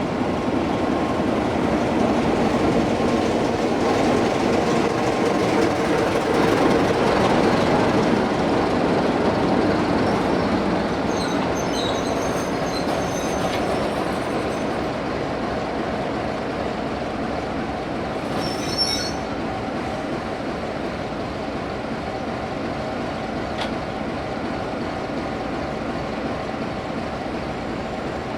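A train of empty coaches hauled by a Class 33 diesel locomotive rolling past, loudest several seconds in, then easing off. Brief high wheel squeals come about twelve seconds in and again near nineteen seconds.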